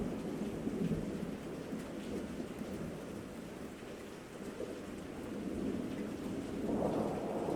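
Steady rain with a low rolling rumble of thunder that dips midway and swells again near the end.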